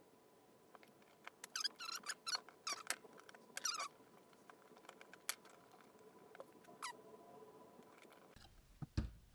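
Small squeaks and clicks of tweezers working a tiny part into a plastic dashboard switch assembly: a run of squeaky scrapes in the first few seconds, then a few single ticks.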